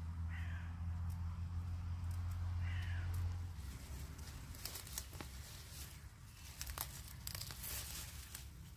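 Leafy green plants tearing, snapping and rustling as they are pulled up and picked by hand, in a run of sharp crackles over the second half. A low steady hum runs through the first three seconds, and a bird calls twice near the start.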